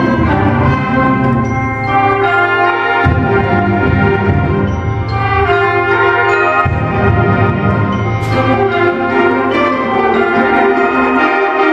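High school symphonic band playing: full brass and woodwind chords held and changing every second or two, the low instruments dropping out briefly twice.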